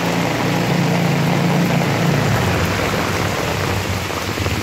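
Heavy rain pouring onto a flooded street, a dense steady hiss of drops hitting the floodwater, with a steady low rumble underneath.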